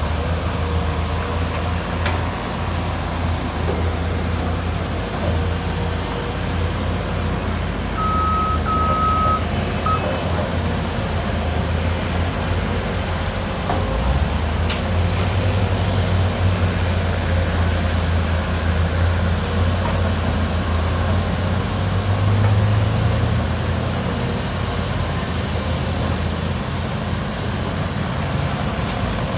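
Heavy diesel engines of a hydraulic excavator and dump truck running steadily at work, the engine note rising under load for several seconds mid-way. Three short high beeps about eight seconds in.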